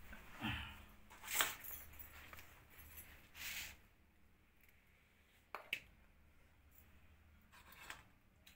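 Faint, scattered handling noises: short rustles and scrapes with a sharp tap about a second and a half in and a single click near the middle.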